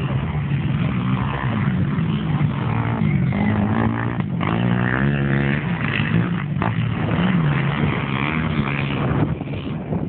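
Racing quad (ATV) engines revving on a dirt track, their pitch climbing and dropping again and again with the throttle, more than one engine heard at once.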